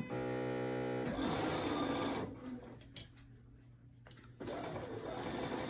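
Bernina sewing machine stitching slowly in short runs: it runs for about a second, stops about two seconds in, and starts again near the end. A held guitar chord sounds at the start.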